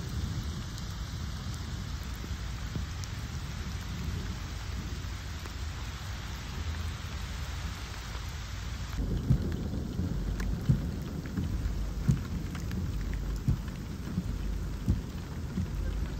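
Steady rain falling on wet pavement and foliage, a constant hiss with a low rumble beneath. About nine seconds in the sound shifts abruptly and irregular low thumps break through the rain.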